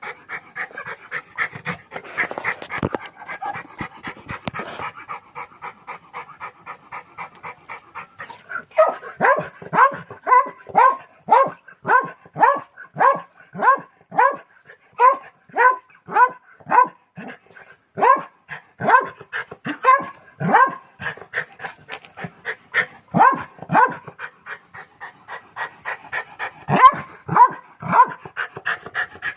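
Pomeranian dog panting rapidly. About eight seconds in it turns to louder, short pitched panting sounds, about two a second, which break off for a couple of seconds near the end and then resume.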